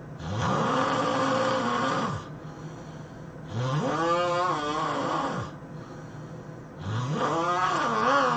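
A person snoring loudly: three long snores about three and a half seconds apart, each rising in pitch and then falling back, the last still going at the end.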